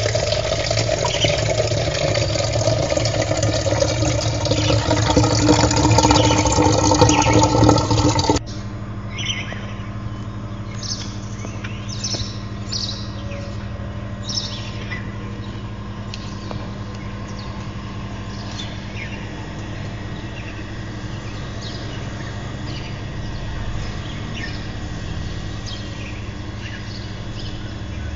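Loud rushing, water-like noise that cuts off abruptly about eight seconds in, followed by birds chirping over a steady low hum.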